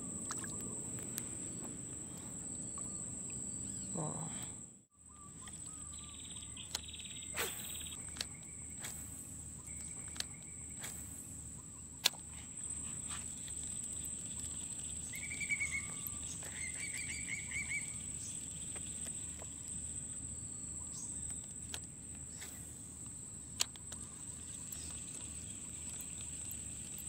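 Shoreline ambience dominated by a steady high-pitched insect trill, with a few short bird chirps about halfway through and scattered light clicks. The sound cuts out briefly about five seconds in.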